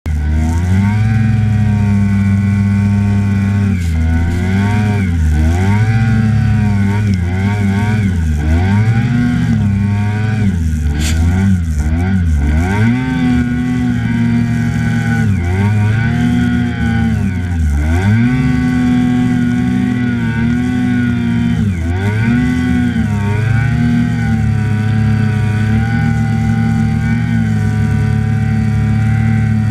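Snowmobile engine running hard through deep powder snow, its revs climbing, holding and dropping again and again as the throttle is worked, with a few deep dips in pitch.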